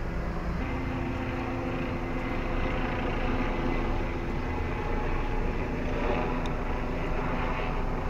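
Steady engine drone with a low hum whose pitch steps up about half a second in.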